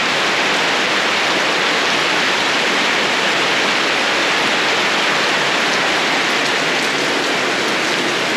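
Heavy rain falling, a steady loud hiss of rain.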